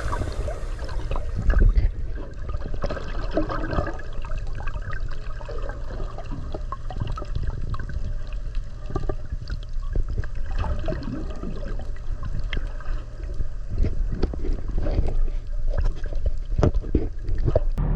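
Water sloshing and gurgling, with many short clicks and crackles over a steady low rumble.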